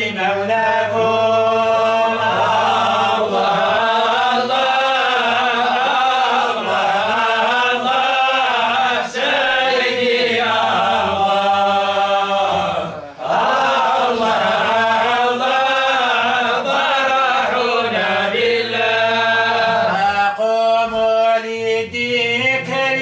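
Men chanting a Sufi devotional song together with no instruments, in long held melodic lines, with a short pause for breath about 13 seconds in.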